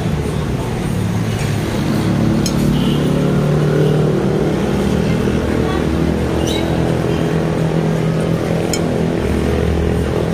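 Steady road traffic with a vehicle engine running close by, and a few light clinks of a metal spoon and fork against ceramic bowls.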